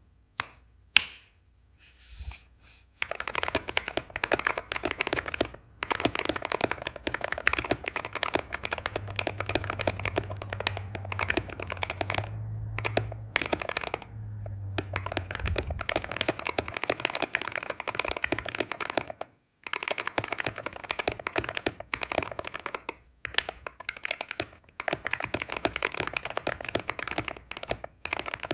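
Typing on a Wooting 60HE keyboard fitted with Gateron Jade switches: a few single key clicks, then fast continuous clacking from about three seconds in, with brief pauses now and then.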